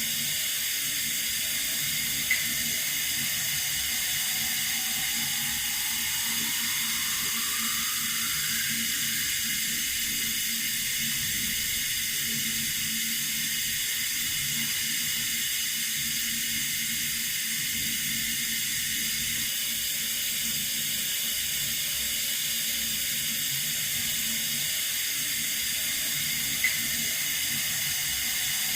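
Water running steadily from a tap, an even high-pitched hiss. A brief click about two seconds in and another near the end.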